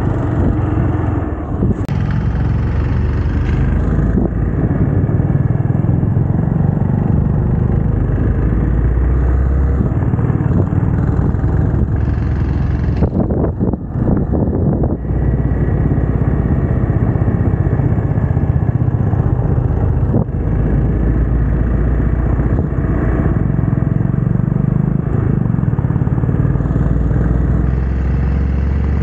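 Hero Xpulse 200T's single-cylinder engine running steadily under way on the road, with brief dips in the engine sound about halfway through and again about two-thirds of the way in.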